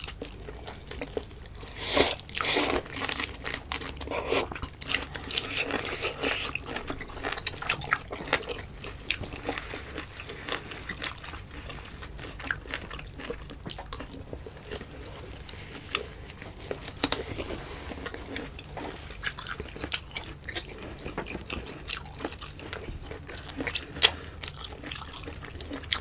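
Close-up eating sounds: chewing, biting and wet mouth smacks of boiled cassava, saba banana and greens dipped in ginamos, with a few sharper clicks, the loudest about 24 seconds in.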